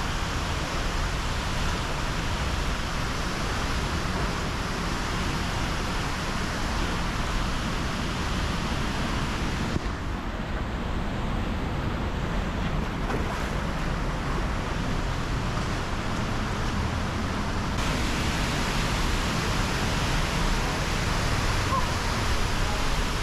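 Steady rushing roar of a waterfall, with wind on the microphone. The high end of the noise goes dull for about eight seconds in the middle, then comes back.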